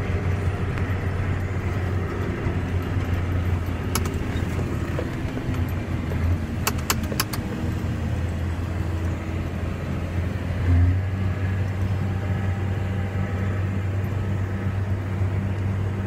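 Tractor engine running steadily under load, heard from inside the cab as a continuous low drone. A sharp click about four seconds in and a quick run of three clicks around seven seconds in.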